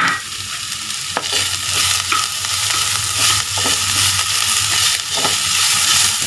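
Chopped onion, green chillies and fresh coriander leaves sizzling in hot oil in a metal wok, stirred with a wooden spatula that clicks against the pan a few times.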